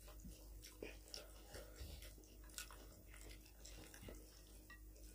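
Faint, irregular chewing of rice and mutton curry, with scattered soft clicks and smacks from mouths and from fingers mixing the food on the plates.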